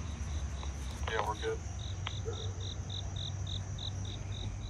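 A cricket chirping in an even rhythm, about three high chirps a second, starting about a second in, over a steady low rumble. A brief distant voice is heard just after it begins.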